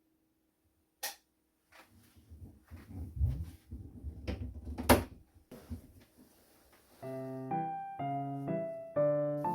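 A sharp click about a second in, then several seconds of irregular knocks and clicks of something being handled, with a loud sharp click near the middle. Background piano music starts about seven seconds in and plays on.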